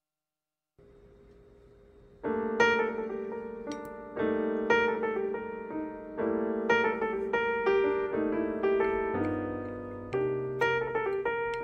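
Background piano music, starting about two seconds in after a faint hiss, with new chords struck every second or two.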